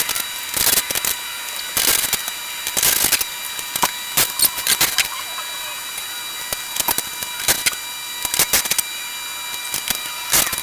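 Irregular metallic clicks, clinks and knocks of hand tools working on a diesel generator's frame as it is unbolted and taken apart, coming in short clusters.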